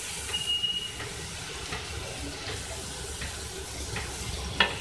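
Shredded chicken and diced green capsicum frying in oil in an aluminium wok, a steady sizzle with a wooden spatula stirring through it. A sharp click near the end.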